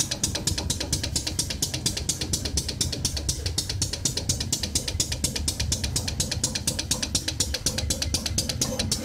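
A machine running with a rapid, even clatter of about six strokes a second over a steady low rumble.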